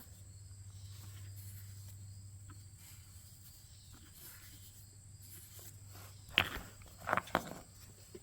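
A few light knocks and clicks from handling the removed torque arm, a metal part, over a faint steady hum. A single knock comes about two-thirds of the way in, and a quick cluster of two or three follows about a second later.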